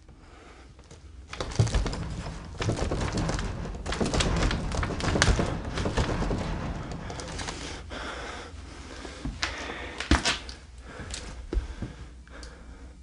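A wooden door's knob being rattled and the door shaken, a jumble of clicks and knocks with a few sharper thunks. It starts about a second in and dies down near the end.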